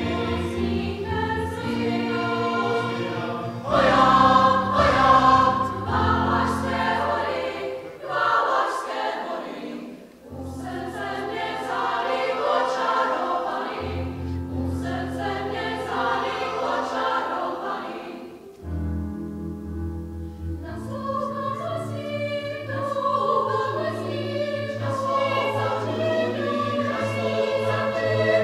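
Mixed choir of women's and men's voices singing together, in several phrases with brief breaks between them.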